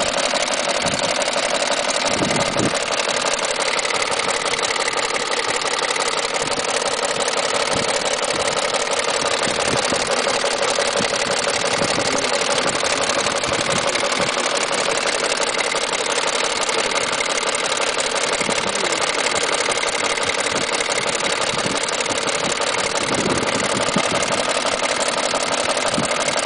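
BMW M62 V8 engine running with a steady, rapid knocking from the timing drive. It is the sign of a broken-up timing chain guide, which let the chain jump.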